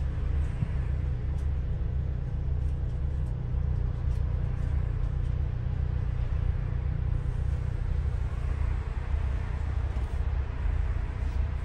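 Double-decker bus under way: a steady low rumble of engine and road noise.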